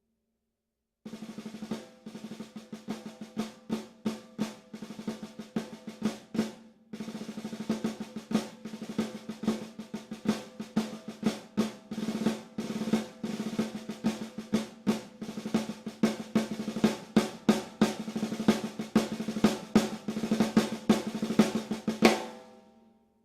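Gretsch Full Range 14x6.5" snare drum played solo: a rolled pattern of rapid strokes with regular louder accents, the drum's ring carrying under it. It starts about a second in, breaks off briefly around seven seconds, resumes, and rings out near the end.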